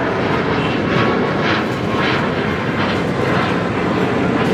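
Airliner's jet engines: a loud, steady noise.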